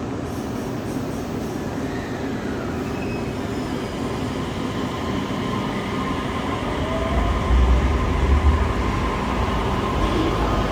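Electric train running at a station platform: a steady rumble that grows louder about seven seconds in, with a thin steady whine above it.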